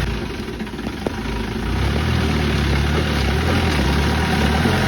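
A motor vehicle's engine running with a steady low hum. It dips briefly in the first second or so, then picks up and holds steady.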